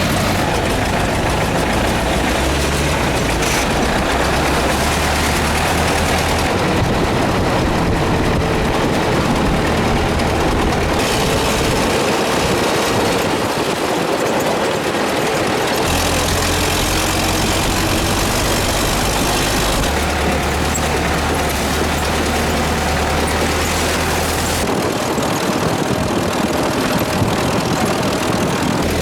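Vehicle engine running with steady road noise, as on a rough-terrain ride. The low engine hum changes abruptly every few seconds.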